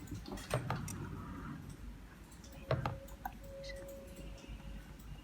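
A few light clicks and taps of small plastic devices being handled while an alarm detector is added to the control panel. A faint steady tone sounds for a couple of seconds midway.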